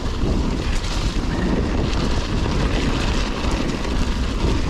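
Mountain bike rolling over a wet, gravelly track: tyre noise and a steady low rumble, with wind buffeting the camera microphone.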